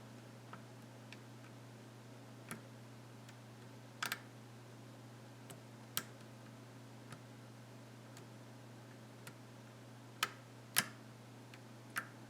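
Irregular small metallic clicks of a lock pick working the pin stack of a challenge lock during single-pin picking, as pins are lifted and set; about a dozen clicks, the loudest a little before the end, over a faint steady low hum.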